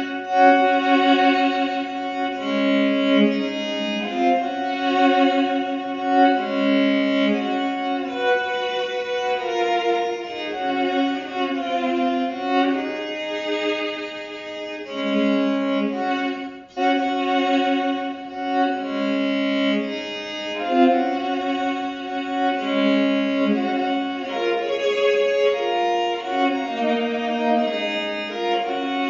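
Fretted electric violin played through a harmonizer effects pedal: each single bowed note comes out as a two-note double stop. A melody of mostly held notes, with one brief break about 17 seconds in.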